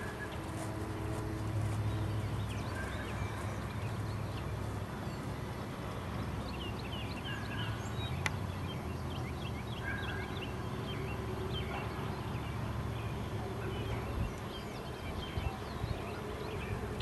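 Birds chirping in short, quick calls, several at once in places, over a steady low rumble.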